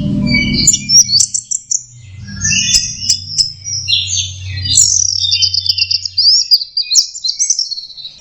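Orange-headed thrush singing a continuous run of varied, fast high phrases with quick slurs and sharp clicks. A low hum runs beneath the song and stops about two-thirds of the way through.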